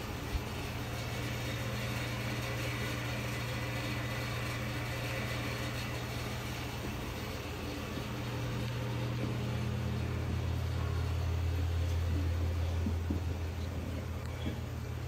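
Steady low mechanical hum inside a steel submarine compartment, growing louder about ten seconds in, with a single sharp click shortly after the start.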